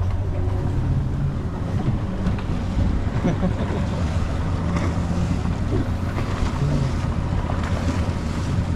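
Small boat's outboard motor running steadily under way, a constant low drone, with water rushing past the hull and wind buffeting the microphone.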